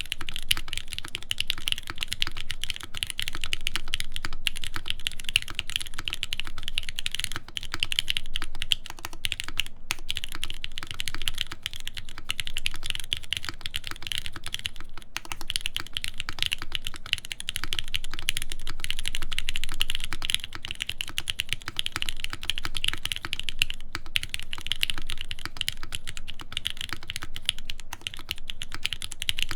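Continuous fast typing on a custom mechanical keyboard with lubed Gateron Milky Pro Yellow linear switches on a full aluminium plate, under R1 keycaps: a dense run of keystroke clacks with only brief pauses.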